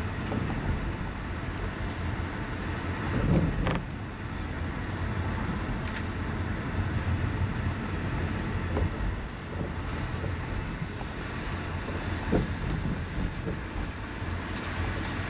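Steady road and engine rumble heard from inside a moving car, with a few brief light knocks.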